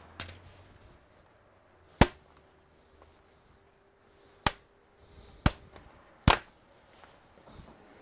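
Plastic retaining clips of an Acer Aspire A315-58 laptop's bottom cover snapping loose as the cover is pried off: four sharp snaps a second or so apart, the first the loudest.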